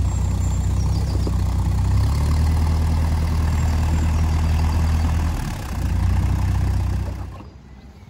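Narrowboat diesel engine running at low revs as the boat is manoeuvred alongside the bank. The engine note shifts about two seconds in, dips briefly about five and a half seconds in, then fades near the end.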